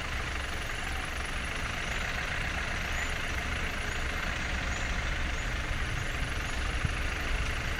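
Steady rumble and hiss of a vehicle engine running, with short high bird chirps repeating about once a second.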